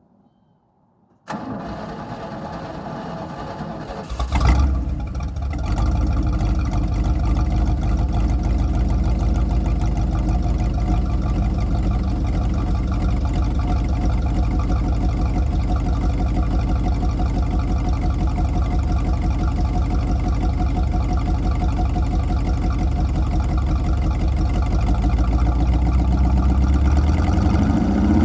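253 V8 engine cranked by the starter for about three seconds, catching with a brief rev, then settling into a steady idle. It is running with a vacuum leak.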